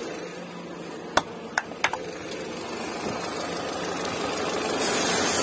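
Peugeot 407 engine idling, growing louder as the mic nears the engine bay, with a few small clicks about a second in. Near the end comes the hiss of brake cleaner sprayed from an aerosol can at the intake, a test for an intake air leak that makes the engine run rough if it is sucked in.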